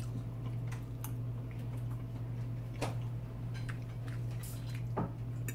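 Someone eating: a few scattered light clicks of a fork on a plate and quiet chewing, over a steady low hum.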